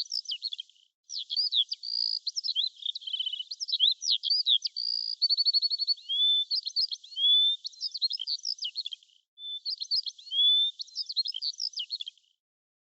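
A songbird singing a fast, varied song of chirps, whistled notes and short trills, with two brief pauses, about a second in and just after nine seconds.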